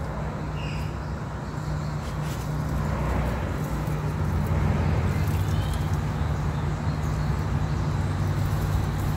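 Steady low hum and rumble of outdoor background noise, with a couple of faint bird chirps about half a second in and again around the middle.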